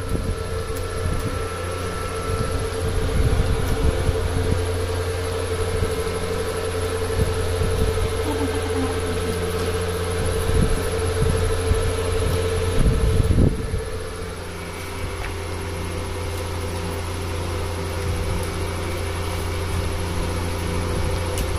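A steady low mechanical hum with a faint high whine, and irregular low bumps over it that stop about two-thirds of the way in, where the hum eases slightly.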